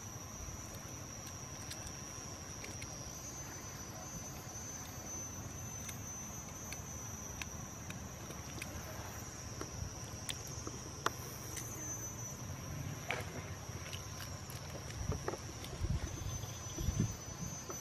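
Steady high insect drone, with scattered small clicks and crackles of an eggshell being peeled by hand. A few low thumps come near the end.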